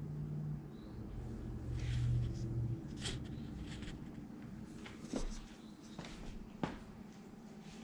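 Handling noise from a large plastic party speaker being turned and moved by hand: low rumbling during the first few seconds, then a few light knocks and taps against its housing.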